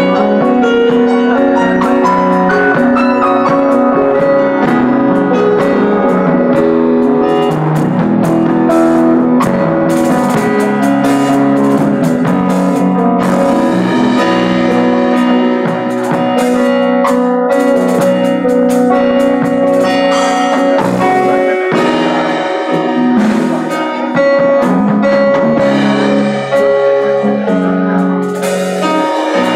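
Live band playing instrumental music: keyboard chords and held notes over a drum beat.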